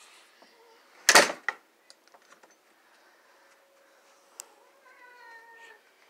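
A sharp thump about a second in, a smaller knock just after and a few light clicks, then near the end a cat meows once.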